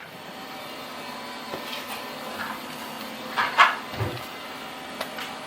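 A steady mechanical hum with a few soft knocks and scrapes of handling.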